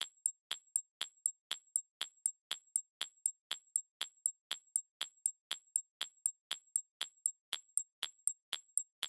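Countdown-timer ticking sound effect: sharp, even clock ticks at about four a second, marking the seconds left to answer.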